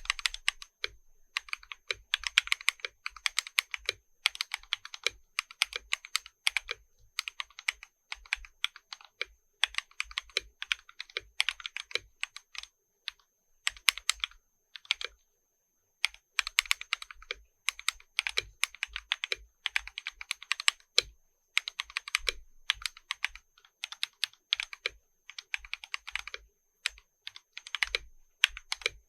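Typing on a Gammakay LK67 custom mechanical keyboard with XDA-profile keycaps: fast runs of sharp key clacks lasting a second or two, broken by short pauses, with a longer pause about halfway through.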